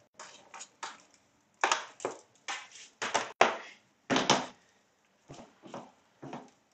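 A power cord being uncoiled and handled: a string of irregular rustles, scrapes and light knocks as the cable and plug brush and tap against the bench, louder in the middle and fainter near the end.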